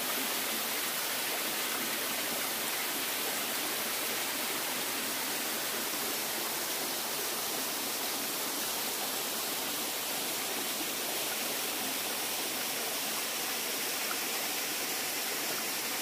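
Small waterfall, its water falling and splashing in a steady, unbroken rush.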